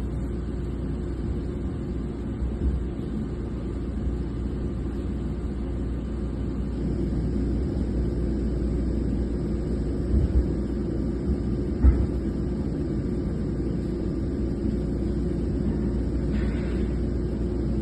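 Steady low rumble of drilling rig machinery running, with a couple of short knocks about ten and twelve seconds in.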